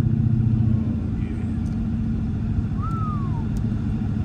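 Ford Coyote 5.0 V8 in a Mustang droning steadily while driving, heard from inside the cabin; the drone drops a little about a second in.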